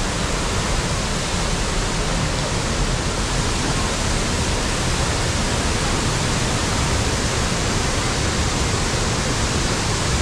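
Steady rush of fast-flowing water, an even hiss with no breaks.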